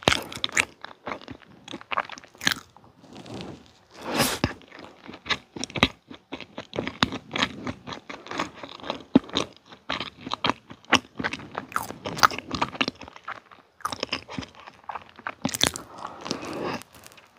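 Close-miked chewing of red velvet cake with cream frosting: a dense run of short mouth clicks and smacks, with a few louder bites.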